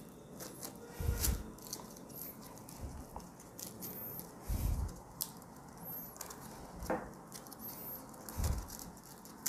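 Handling noise from splicing twisted three-strand rope: strands rubbing and faintly squeaking as they are pulled and tucked through the lay, with scattered small clicks and three soft low thumps of hands on the cloth-covered table.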